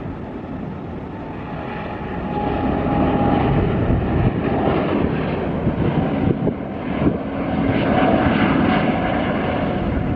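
Jet noise from an Airbus A350-900's Rolls-Royce Trent XWB turbofans at takeoff power as the airliner climbs out after takeoff. It is a broad, steady rush with a faint steady whine in it, growing louder about two to three seconds in.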